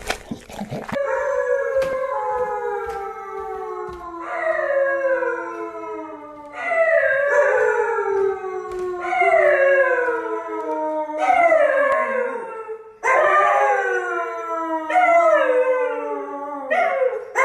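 A dog howling: a run of about eight drawn-out howls, one after another, each sliding down in pitch.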